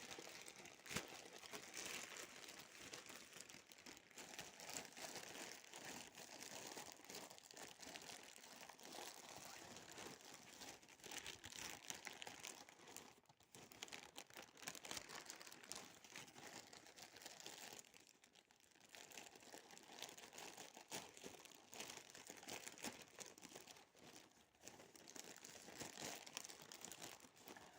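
Parcel packaging crinkling and tearing as a parcel is unwrapped: a faint, continuous crackle with a few short lulls.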